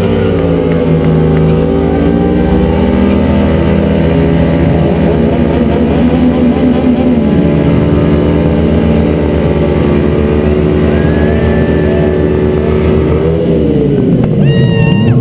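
Two sportbike engines held at high revs during a side-by-side burnout, rear tyres spinning and smoking. The engine pitch stays high and wavers, then dips and climbs again near the end.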